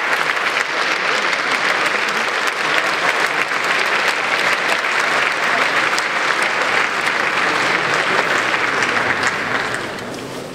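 A large audience applauding, with dense, sustained clapping that dies away near the end.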